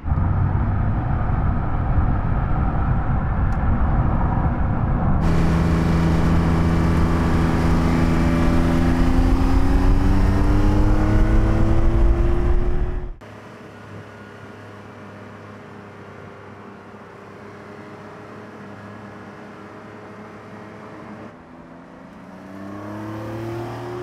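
Porsche 911 Carrera T's twin-turbo flat-six accelerating, its note climbing steadily in pitch through one long pull. About halfway through the sound cuts suddenly to a much quieter, steady engine note, and near the end it rises again in a second, softer pull.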